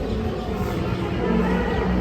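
Music with long held notes playing over dense street noise.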